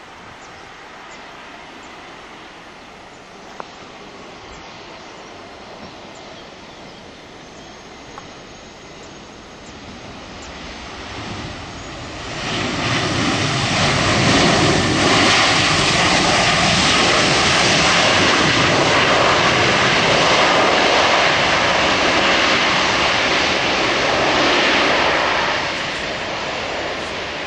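Airbus A321-231's twin IAE V2500 turbofan engines on the landing rollout. A distant, steady rush swells about ten seconds in to a loud, steady jet noise as the airliner passes close, then drops away near the end.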